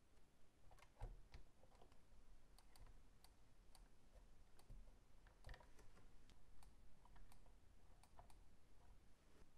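Faint, scattered clicks and taps of fingertips and a hobby knife on a plastic toy car body as stickers are positioned and pressed on, the sharpest about a second in.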